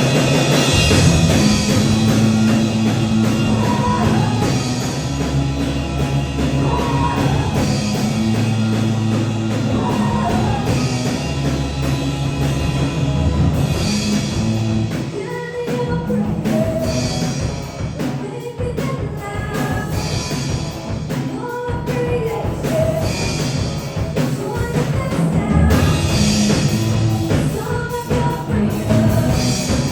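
Rock-style band music with a drum kit, playing continuously with sustained melody notes over it.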